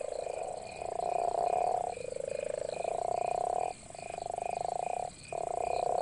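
Male western leopard toads calling in chorus at a breeding pond: deep, low, snore-like calls of about a second each, one after another, some overlapping. These are mating calls to attract females.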